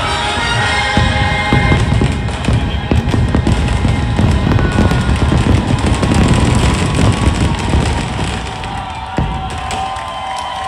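Fireworks finale: many shells bursting in rapid overlapping succession, a dense run of booms and crackle, with music playing underneath. The barrage thins out near the end.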